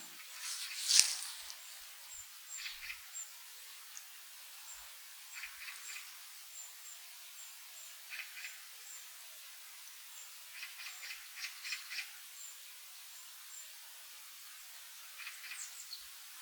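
Small forest birds calling: a thin, high note repeated over and over, with short bursts of chirps every two to three seconds. The loudest moment is a sharper burst about a second in.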